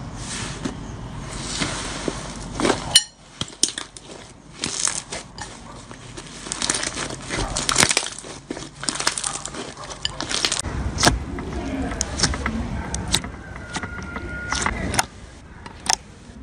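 Slime being squished and pressed by hand, making wet crackling with many sharp clicks and pops. The texture changes abruptly twice.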